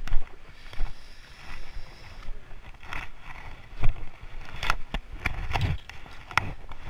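Footsteps splashing through shallow water and crunching over river cobbles, with irregular sharp clicks of stones knocking together and low thumps from the footfalls, busiest in the second half.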